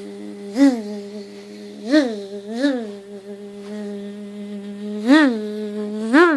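A person imitating a buzzing bee by humming through tight lips: a steady low hum with five quick upward swoops in pitch, the rises that make the bee sound as if it is moving.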